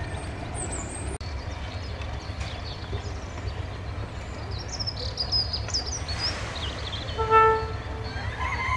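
Class 31 diesel locomotive idling with a steady low rumble from its English Electric engine; about seven seconds in, a short single-note horn toot, the loudest sound. Birds chirp briefly.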